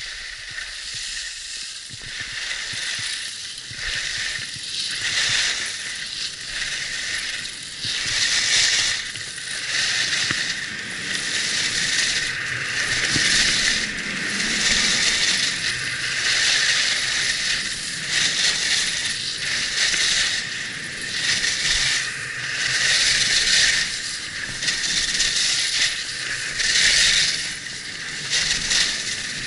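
Skis hissing and scraping over packed snow, swelling and fading with each turn. It is quieter at first and louder from about eight seconds in as the pace picks up.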